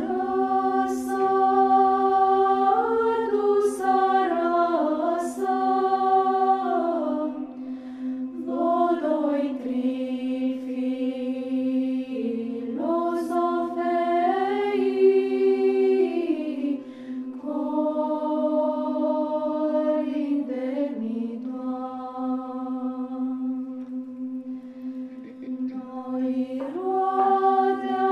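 Psaltic (Byzantine-chant) choir of mostly female voices singing a Romanian Christmas carol (colind) a cappella, the melody moving over a steady held drone note (ison).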